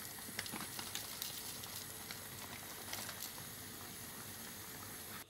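Pot of spinach in tomato juice simmering on the stove: a steady bubbling hiss with many small pops and crackles, cutting off suddenly near the end.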